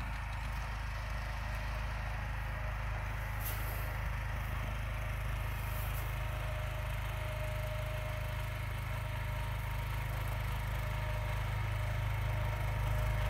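John Deere garden tractor engine running steadily while plowing snow, getting a little louder near the end as it comes closer.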